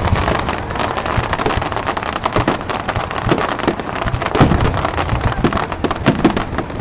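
Fireworks crackling densely, a rapid rain of small sharp pops from crackle stars, with a few heavier bangs mixed in, the loudest about four and a half seconds in.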